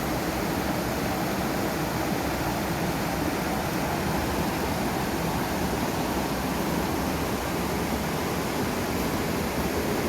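A fast-flowing river rushing steadily.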